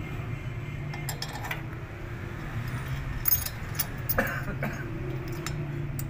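Small metal nuts and bolts clinking in the hands as they are fitted to a small engine's cylinder head: a few scattered light clicks, over a steady low hum.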